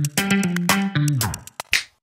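Intro jingle music: short plucked, guitar-like notes in a bouncy rhythm, ending a little past a second in with a falling pitch slide, a couple of quick clicks and a short swish, then it cuts out.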